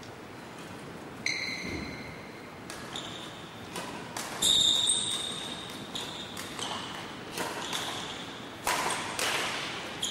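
Badminton racket hitting shuttlecocks again and again, about ten sharp string pings at uneven spacing after a quiet first second, each ringing on in a large echoing hall; the loudest comes near the middle.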